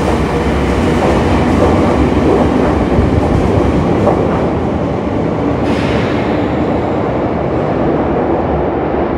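Nagano Electric Railway 2100-series limited express pulling out of an underground station and running off down the tunnel: a steady rumble of wheels and motors echoing off the tunnel walls. A brief hiss comes about six seconds in, and the sound loses its high end as the train draws away.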